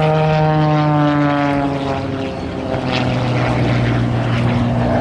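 A propeller-driven airplane flying past, its engine note falling in pitch as it passes, then holding steady at a lower pitch as it moves away.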